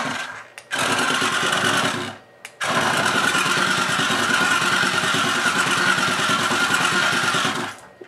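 Small electric motor and gearbox of a battery-powered remote-control toy carriage whirring as it drives. It runs in three bursts: a short one stopping about half a second in, another from about one to two seconds, then a long run that cuts off just before the end.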